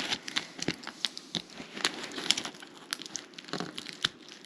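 A memory card's stiff plastic packaging crinkling and crackling as it is cut open around the card with a knife, in irregular sharp clicks.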